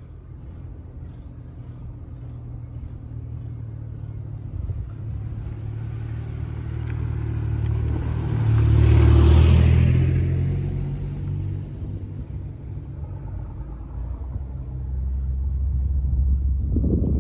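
A small kei pickup truck driving past close by: its low engine rumble builds, peaks about nine seconds in, then fades away. A low engine rumble builds again near the end.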